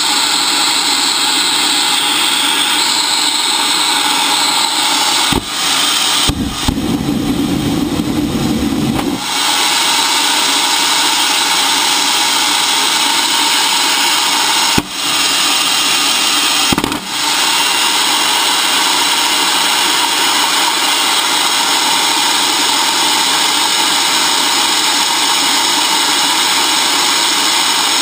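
Homemade turbojet built from a small turbocharger, running steadily: a loud rushing noise with a faint whine. From about six to nine seconds in, the sound turns deeper for a few seconds, and a few brief dips in level follow later.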